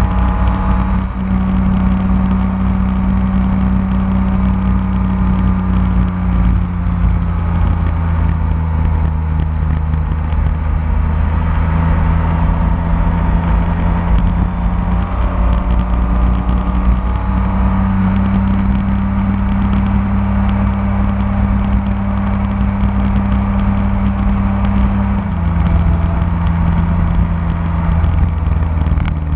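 BMW K1600 motorcycle's inline-six engine running steadily at cruising speed, its note stepping to a new pitch a few times with throttle and gear changes, over steady wind and road noise.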